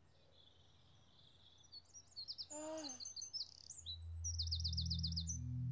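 Birdsong: scattered chirps from about two seconds in, then a fast trill of about eight notes near the end. Low held music notes come in about four seconds in.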